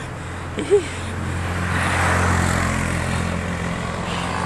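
Motorcycle engine of a motor tricycle droning as it overtakes, growing louder to about two seconds in and then fading as it pulls away ahead.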